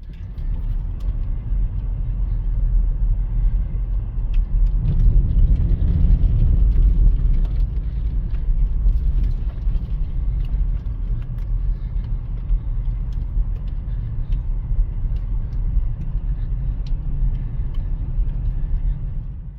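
BMW X3 driving: a steady low road and engine rumble, swelling a little about five seconds in, with faint scattered ticks.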